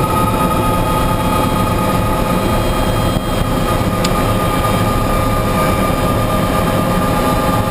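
Bell 206 JetRanger's Allison 250 turboshaft engine and rotor running steadily, heard from inside the cabin: a constant turbine whine made of several steady tones over a low rumble. A short click, as of an overhead panel switch, about four seconds in.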